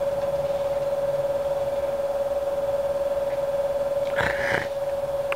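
A steady high-pitched hum, with a short noisy sound about four seconds in and a faint click near the end.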